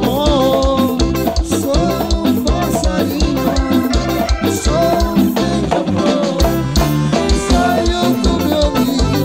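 Live band playing lambadão dance music: a steady, fast drum beat under melodic instrumental lines.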